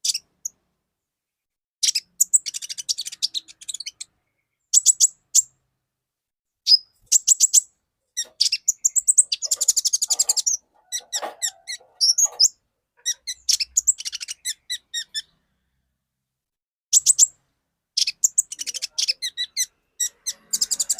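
Olive-backed sunbird singing in full song: bursts of fast, high-pitched twittering phrases broken by short pauses, with a longer pause about three quarters of the way through.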